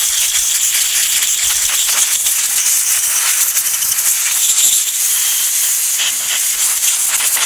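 Compressed air from an air-compressor blow gun hissing steadily, high-pitched and loud, as it blows excess spray oil out of a revolver's open frame, cylinder and hammer mechanism.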